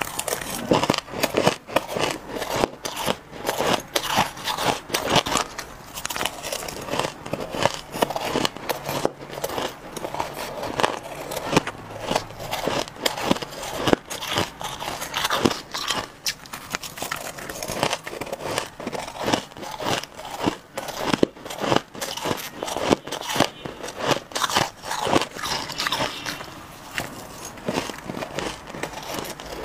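A person crunching and chewing mouthfuls of white shaved ice: a dense, irregular run of crisp crackling crunches.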